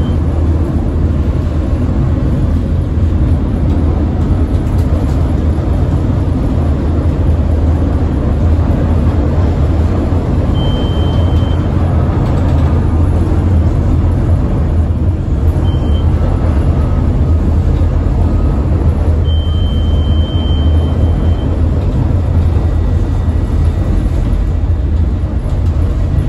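CTA 2600-series rapid-transit car running at speed, heard from on board: a loud, steady, deep rumble of wheels on rail. Brief thin high squeals come from the wheels a few times near the middle.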